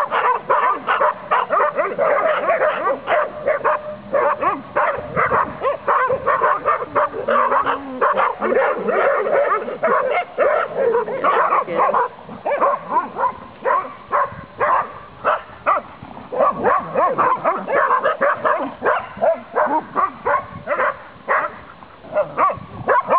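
Saluki barking in quick, near-continuous strings of several barks a second, more spaced out in the second half. This is excited play-barking at dogs across a fence.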